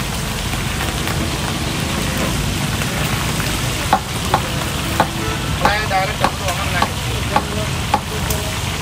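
Green chillies deep-frying in hot oil in a large iron kadai, a steady sizzle throughout. In the second half a few sharp metallic knocks come as the slotted spoon is worked in the pan to lift them out.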